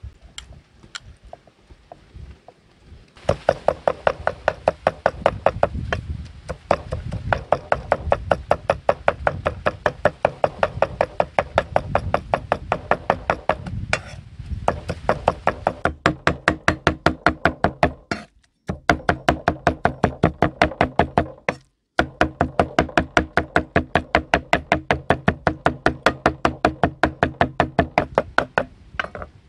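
A few light taps, then a heavy cleaver chopping rapidly and steadily on a thick wooden chopping board, mincing cooked snail meat into paste, several strokes a second with two brief breaks.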